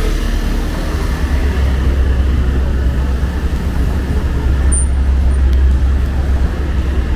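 Road traffic on a busy city street: a steady low rumble of vehicles running past.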